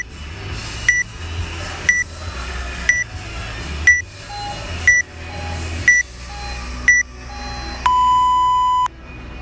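Workout countdown timer beeping: eight short, high beeps a second apart, then one long, lower beep about eight seconds in, marking zero and the start of the workout. Fainter, lower beeps from a second timer fall between the later ones.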